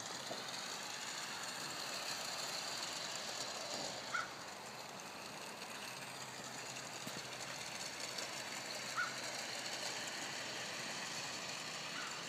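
Garden-railroad model train running along its track: a steady small electric motor whir with wheel noise.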